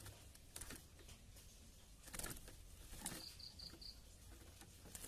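Faint scratchy taps and rustles, with a run of four short, evenly spaced high chirps at one pitch a little over three seconds in.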